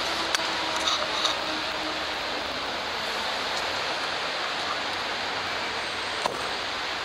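Steady, even hiss of background noise, with a few faint clicks about a second in and again near the end.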